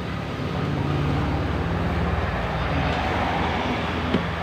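A motor running steadily with a low rumble that swells slightly about half a second in, and a single sharp click near the end.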